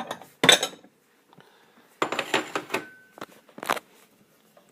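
Dishes clinking and clattering as a bowl is fetched and set down: a couple of sharp knocks, then a longer clatter about two seconds in with a short ring, and one more knock.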